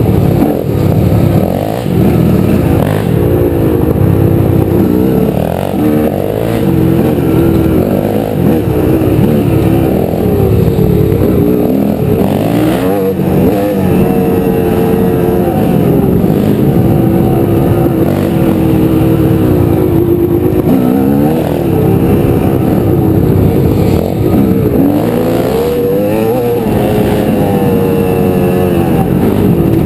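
Honda CR250 two-stroke dirt bike engine running hard on a trail ride, its pitch rising and falling again and again as the throttle opens and closes and the rider shifts gears.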